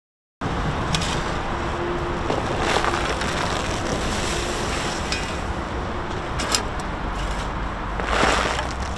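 Shovelfuls of loose soil thrown into a small grave, each landing as a short crumbling rush, over a steady background hum. The loudest rushes come about three seconds in and again near the end.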